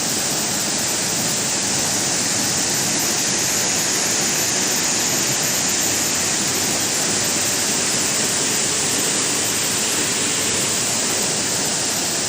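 Steady, even rush of falling water, unchanging throughout.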